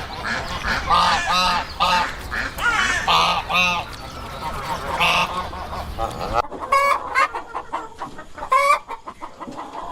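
Chickens clucking in a run of short calls over a noisy background. The background drops suddenly about six and a half seconds in, and the clucking continues.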